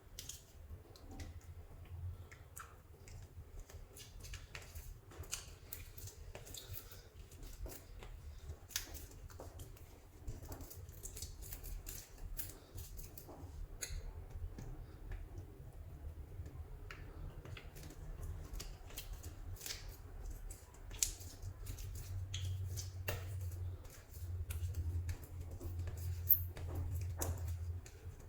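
Hands squeezing and mixing soft clay, giving irregular small clicks, crackles and sticky pops over a low rumble, busier near the end.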